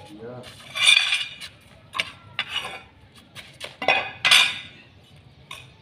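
Scraping on a tiled floor as a line is marked on it: two main loud, rasping strokes, about a second in and again about four seconds in, with weaker scrapes and sharp clicks between.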